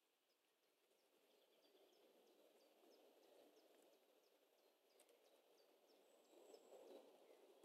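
Near silence: a brown rat faintly rustling as it forages in wood chips and leaf litter, a little louder near the end, with faint high chirps repeating about three times a second.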